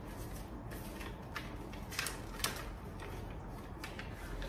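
Paper pages of an instruction booklet being handled and leafed through: a few short, soft rustles and clicks over a low background hum.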